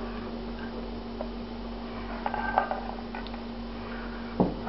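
A few light clinks and taps as pan sauce is poured over a plated serving of meat on bread, over a steady low hum; a single sharp knock comes near the end.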